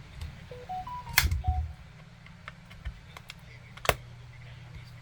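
Screwdriver prying at a power bank's glued plastic case: two sharp clicks or snaps, about a second in and near four seconds, with lighter clicks and taps between. Just before the first snap come a few short electronic beeps stepping up in pitch, over a low steady hum.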